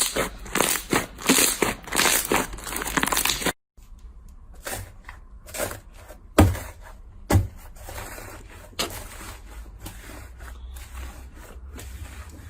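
Slime being squeezed and pressed by hand, giving a dense crackling of many small pops. About three and a half seconds in, the sound cuts out briefly, then returns quieter, with scattered single pops and clicks over a low hum.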